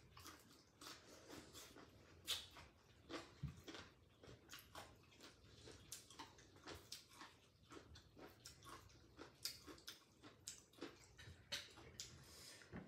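Faint eating sounds: chewing, with many small irregular clicks and crackles as food is bitten and picked apart by hand.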